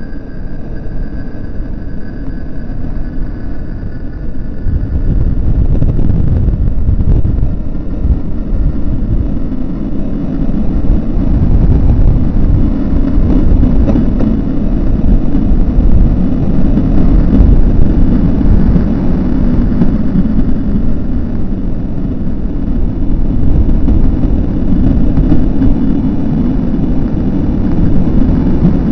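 Road traffic on a bridge: a loud, deep rumble that grows louder about five seconds in, with faint high tones fading out near the start.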